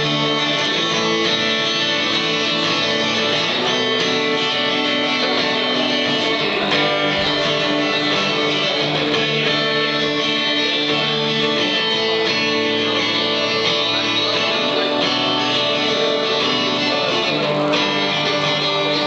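Solo acoustic guitar playing an instrumental intro, steady ringing chords that change every few seconds.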